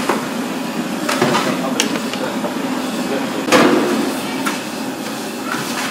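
Kitchen clatter: a handful of sharp knocks and clanks of stirring paddles and utensils against large steel cooking pots, the loudest about three and a half seconds in, over a steady din.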